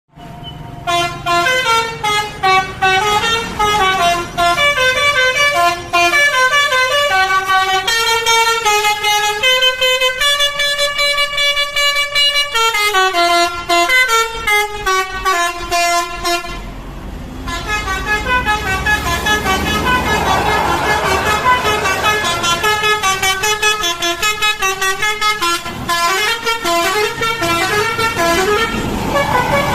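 A bus's 'telolet basuri' musical horn playing a warbling melody of held tones that step up and down in pitch. It breaks off briefly about seventeen seconds in, then plays on over the low rumble of the bus's engine.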